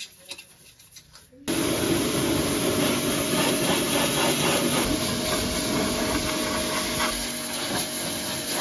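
Light brush scrubbing, then about a second and a half in a pressure washer starts spraying: a steady loud hiss of the water jet rinsing degreaser foam off a car's chassis and engine bay.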